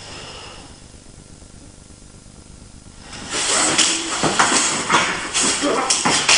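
Two people scuffling on a mat: clothing rustling, with quick thuds and slaps of bodies and hands on the mat. It starts about three seconds in, after a near-quiet stretch of faint hiss.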